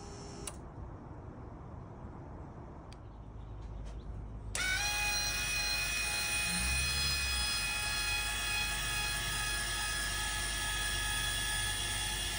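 The original Eco-Worthy solar tracker's old 12-inch linear actuator starts up about four and a half seconds in and runs steadily, its motor and gearing giving off a loud whine made of several fixed pitches: the noise that drove the owner to fit a quieter actuator.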